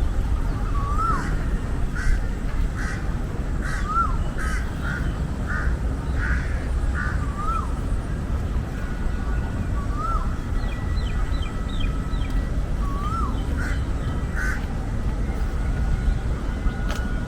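Birds calling in a city park: a short rising-and-falling whistled note repeated every second or two, and a run of short harsh calls in the first half. Under them runs a steady low rumble of city traffic.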